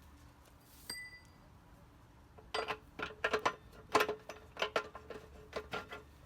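Metal clinks and rattles of tools and wheel parts being handled. There is a single ringing clink about a second in, then a run of irregular knocks and clinks, several a second, that start about two and a half seconds in.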